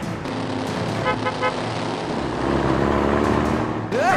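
Dubbed motor-vehicle sound effect: an engine running, with a quick run of about four short horn toots just over a second in. The engine sound grows louder in the second half.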